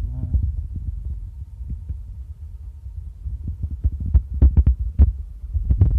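Low rumbling throb of close handling noise, with a run of sharp knocks and clicks about four to five seconds in, as cookware and a plastic colander of freshly boiled beef meatballs are moved about.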